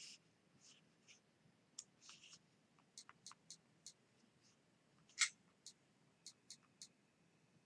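Light, scattered clicks and taps, about a dozen, from handling and tapping a tablet's touchscreen; the loudest comes a little past the middle. A faint steady high tone sets in near the end.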